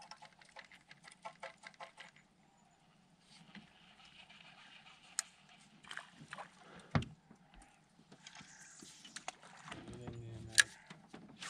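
Faint handling sounds in a small aluminium fishing boat: a run of quick ticks at the start, soft water and hull noise, a dull knock about seven seconds in and a sharp click near the end.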